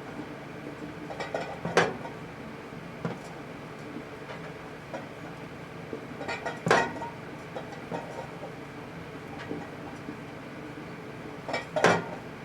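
Microwave oven running with a steady hum while a 400-watt high-pressure sodium bulb sits inside. Three loud, sharp snaps come about five seconds apart, with smaller crackling ticks around them.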